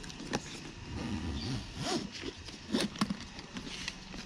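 Handling noise from a motorcycle tank bag and its cardboard tag: rustling with a few sharp clicks and knocks, the loudest two close together about three seconds in.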